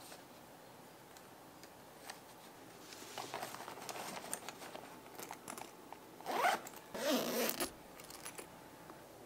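Suitcase zipper pulled in two quick strokes, about six and seven seconds in. Before them come a few seconds of rustling and light knocks as things are moved around inside the case.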